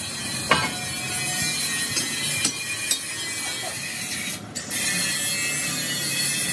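Metal-workshop noise: a few sharp metal clanks and knocks in the first three seconds over a steady hiss and hum of the shop. The background gets somewhat fuller after a short dip a little past halfway.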